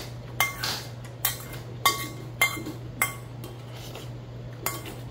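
Metal spoon clinking and scraping against a stainless steel bowl, about eight clinks over five seconds, several leaving a short metallic ring. A steady low hum runs underneath.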